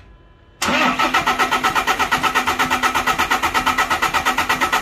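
Starter motor cranking a VW Crafter's 2.0 four-cylinder diesel engine, starting about half a second in. It makes an even, rapid pulsing of about ten beats a second over a steady whine, without the engine firing, while the injector leak-back is being tested.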